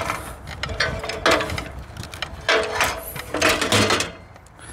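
Chainsaw mill frame sliding along aluminium ladder rails, metal scraping and clunking in uneven bursts as it sticks and is forced along. The saw's engine is off.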